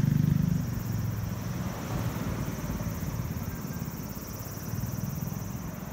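Road traffic on a busy street: a vehicle's engine passes and fades about half a second in, leaving a steady traffic rumble. Summer cicadas keep up a steady high buzz throughout.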